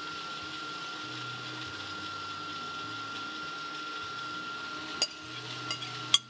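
A steady whir, then a few sharp clinks near the end as a metal spoon scrapes dressing out of a glass bowl, the last clink the loudest.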